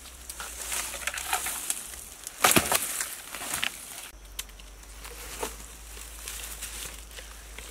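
Rotten wood crackling and crunching as it is broken apart by hand, in scattered snaps, with one louder crunch about two and a half seconds in.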